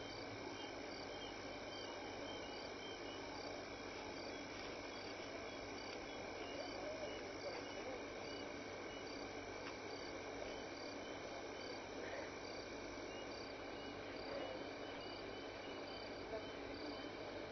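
Faint night bush ambience: an insect chirping in short, high pulses repeating at a steady pace over a steady hiss.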